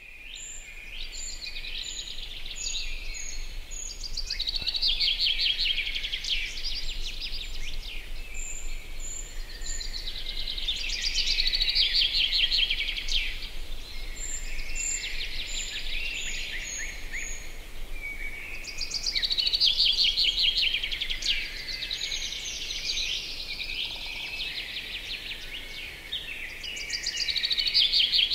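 Several songbirds singing at once: a dense, fast, chattering song that swells and fades in phrases a few seconds long, over a separate series of thin high notes, about two a second, that starts and stops several times.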